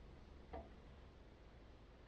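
Near silence: faint room tone with one soft click about half a second in.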